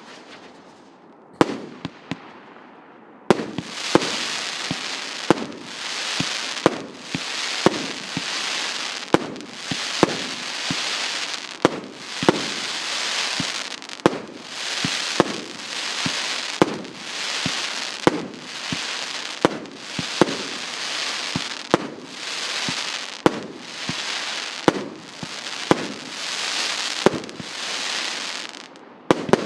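A 100-shot, 1.2-inch fireworks cake firing: a single shot about a second in, then, from about three seconds in, sharp launch shots in steady succession, roughly one every 0.7 s. A continuous hiss and crackle of the bursts fills the gaps between shots.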